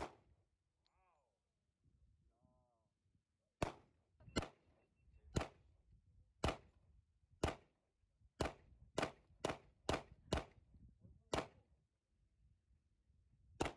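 Handgun shots, a dozen or so in all. One comes first, then after a pause a string of shots about one a second that quickens to about two a second, with one last shot near the end.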